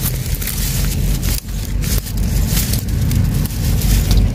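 Dry leaves and twigs crackling and a knife scraping in the soil as small mushrooms are dug out of the leaf litter. Under it runs a steady, uneven low rumble.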